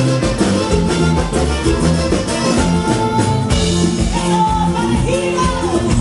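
Live norteño huapango band music: button accordion, guitar and drum kit playing to a steady beat, with a long held note about halfway and singing coming in over the second half.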